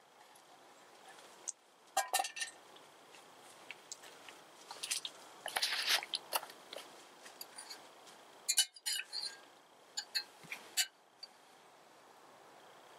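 Small metal camp pot and gear being handled and set down: scattered clinks and knocks with bursts of rustling between them.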